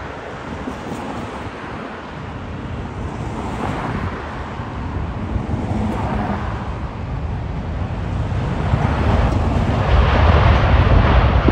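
Airbus A350's Rolls-Royce Trent XWB jet engines as the airliner touches down and rolls out along the runway, the sound growing steadily louder toward the end, with wind buffeting the microphone.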